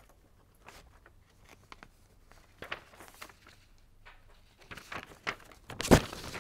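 Quiet room tone broken by a few faint clicks and rustles, with one louder sharp knock about six seconds in.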